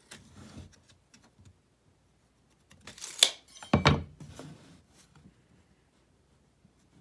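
Hand tools handled on a workbench: a few light clicks, then about three seconds in a sharp metallic clatter and a dull knock as an aluminium speed square is set down against a pine board, followed by faint handling noise.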